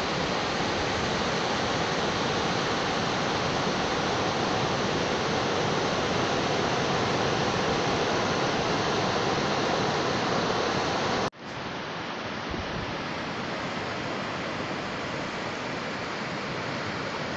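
Steady rush of surf breaking on a sandy beach, with some wind. About eleven seconds in it drops out abruptly for a moment and then carries on a little quieter.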